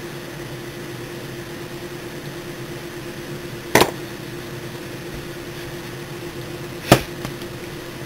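Two sharp clicks about three seconds apart as a solid brass belt buckle is handled, over a steady low hum.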